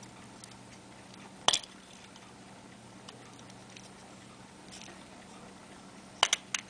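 Metal clicks from handling an 18-size Elgin hunter case pocket watch while its back is opened: one sharp snap about a second and a half in, then a few quick clicks near the end.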